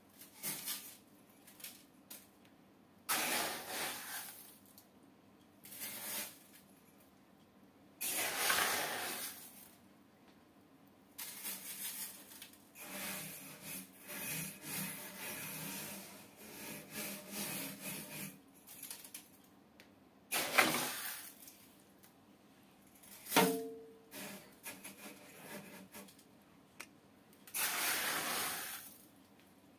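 Small aquarium gravel being scooped from a plastic tub and poured into an empty glass aquarium: a series of pours, each a rush of pebbles about a second long, with a longer stretch of scooping and pouring in the middle. A single sharp knock comes about two-thirds of the way through.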